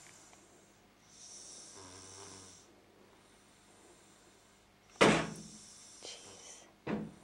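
A boy snoring in his sleep. A soft, low snore comes about a second in, then a loud, sudden snort about five seconds in and a shorter one near the end.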